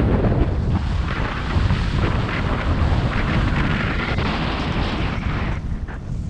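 Wind buffeting a GoPro's microphone during a fast run down a powder slope, a heavy low rumble, with a steady hiss of snow sliding under the rider. The hiss eases briefly near the end.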